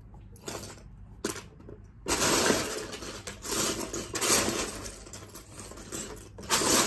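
Loose plastic Lego bricks clattering as a hand rummages through a pile of them: a few separate clicks at first, then about two seconds in a continuous rattling that swells and fades several times.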